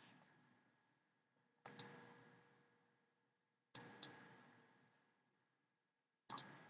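Computer mouse clicking faintly, three quick pairs of clicks about two seconds apart, against near silence.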